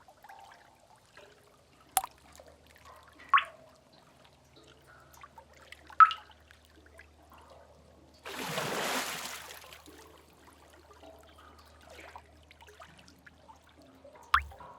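Water drips plopping at irregular intervals in a sea cave, about four loud drops, with a splash of wave wash lasting about two seconds just past the middle, over a faint low steady rumble.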